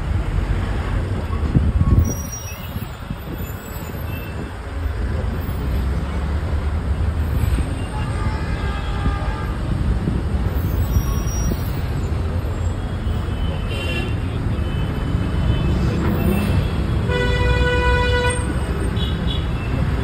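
Steady road rumble of a moving vehicle in traffic, with a brief low thump about two seconds in. Vehicle horns honk several times, the longest and loudest about seventeen seconds in.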